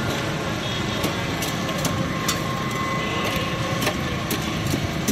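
Steady street traffic noise with about a dozen sharp, irregular clicks of a steel ice pick chipping a block of ice in a steel bowl.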